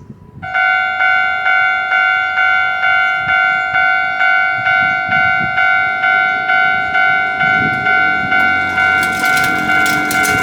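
Japanese railway level-crossing warning bell starts ringing about half a second in, a steady 'kan-kan' struck about twice a second. A rattling, clattering noise builds under it near the end.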